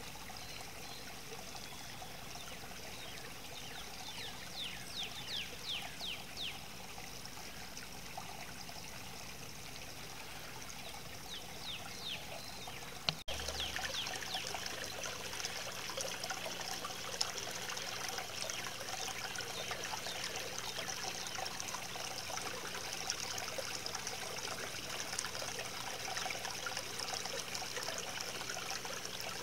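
Garden fountain water trickling and splashing steadily. It gets louder after a sudden break about halfway through.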